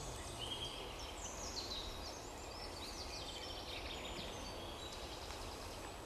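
Songbirds singing in woodland: short, high trilled phrases, several falling in pitch, over a steady low background rumble.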